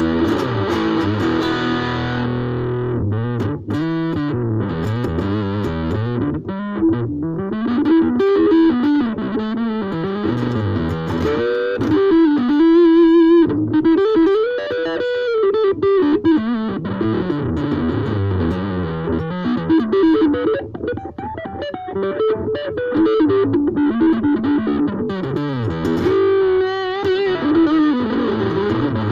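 Ibanez AXS42 electric guitar played through distortion and effects: a melodic lead line with held notes, bends and vibrato. The guitar's wiring has been changed to vintage solid-core wire.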